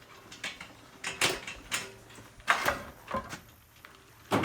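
A hand trolley rattling and knocking as it is moved off on its newly repaired wheel: about six irregular sharp knocks and clatters.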